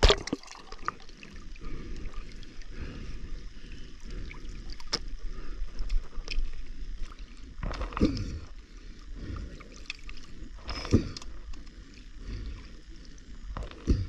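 River water sloshing and gurgling around a spearfisherman wading and diving, with a few sharp splashes: one at the start, one about eight seconds in, another about three seconds later and one at the end. The sound shifts between muffled underwater and open surface as the recording goes in and out of the water.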